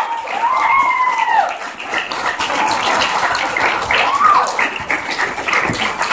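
Audience clapping and cheering, with several high whoops and shouts that rise and fall in pitch over the applause.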